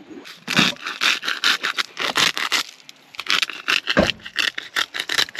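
Quick, repeated scraping and rattling strokes from cooking gear and food being handled, with one heavier thump about four seconds in.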